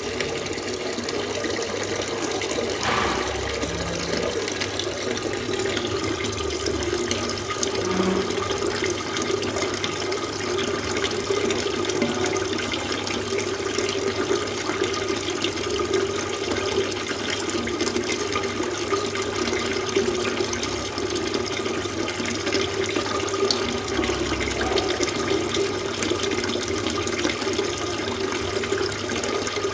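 Water fountain running: a steady splash of falling water, even and unbroken.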